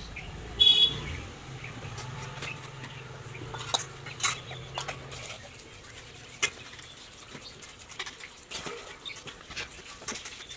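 Small clicks, taps and rustles of fingers picking pith off peeled orange segments and moving them about on plates, with a short high chirp about a second in and a faint low hum during the first half.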